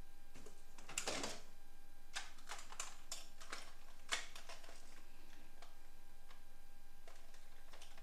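Hard plastic toy vehicles clicking and rattling against each other in a cardboard box as a toy airliner is lifted out and handled, with a louder rustle about a second in and a sharp click about four seconds in.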